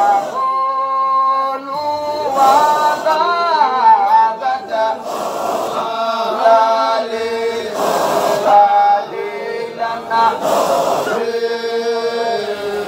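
Men's voices chanting a Sufi Qadiriya dhikr together, a continuous melodic chant that steps and glides in pitch, with short breaks every couple of seconds.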